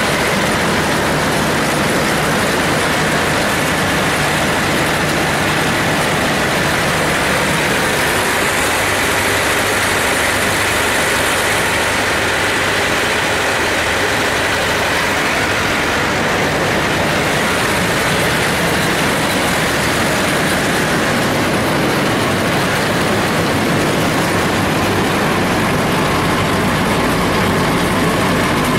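Bautz T600 combine harvester running steadily, its engine and belt-driven machinery making a dense, even mechanical noise.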